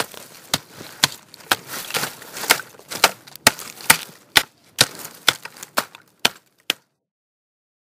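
A series of sharp knocks, about two a second with a hiss between them, that stops suddenly near the end.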